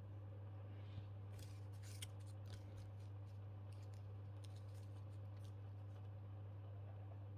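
A steady low hum, with faint scattered clicks and rustles from about one to five and a half seconds in.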